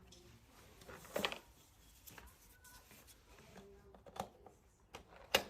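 Handling noises: a few light knocks and clicks spread out over a few seconds, with the loudest near the end. No vacuum motor is running.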